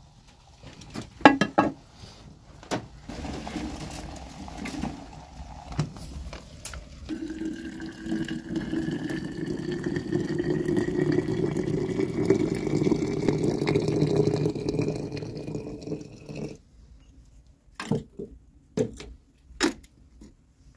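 Water poured from a metal jug into a metal teapot: a steady splashing stream lasting about nine seconds, its pitch rising as the pot fills. Metal clanks come before it, and a few sharp metal clinks come after it.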